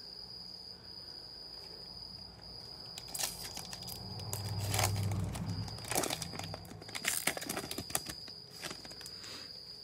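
Foil wrapper of a trading-card pack crinkling and tearing as gloved hands open it, with a handful of sharp crackles from about three seconds in. A cricket's steady high-pitched trill runs underneath.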